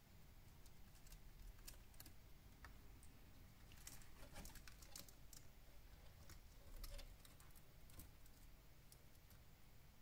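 Near silence broken by faint, scattered clicks and taps, bunched about halfway through: a ring-necked parakeet's beak and claws on twigs and a wicker perch as it climbs about.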